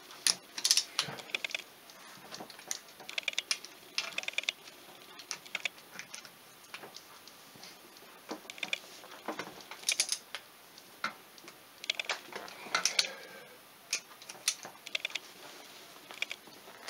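Ratcheting wrench on a socket extension clicking in short runs of rapid clicks, with scattered metal clinks, as the two-stroke engine's crankcase bolts are tightened to torque in a crisscross pattern.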